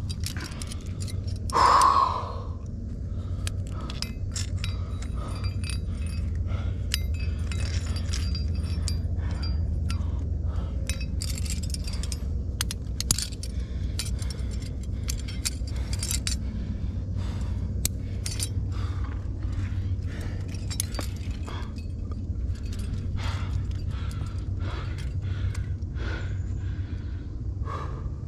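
Trad climbing rack of cams and carabiners jingling and clinking against the harness and rock as the climber moves up the route, over a steady low rumble. One short, louder sound stands out about two seconds in.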